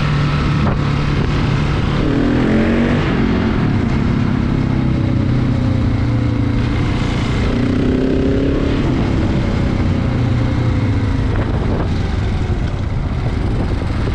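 KTM 690 motorcycle's single-cylinder engine running at road speed, with a steady rush of wind and road noise over it. The engine pitch swings up and down twice as the throttle changes.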